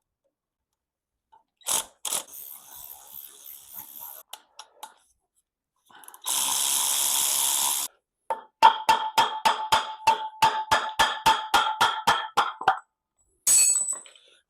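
Hand and power tools working on the pulley of a Mercedes M110 engine during its removal. A couple of sharp clicks come first, then a power tool runs steadily for about a second and a half. Then a quick run of about twenty ringing metallic strikes follows, about five a second.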